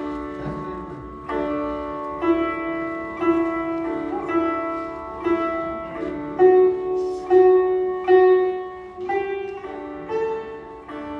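Sitar played slowly: single plucked notes about once a second, each ringing on over the steady drone of the other strings.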